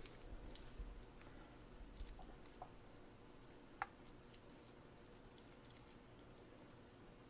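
Faint soft squishing and tearing of hands pulling apart tender cooked chicken meat and skin, with scattered small clicks and one sharper click about halfway through.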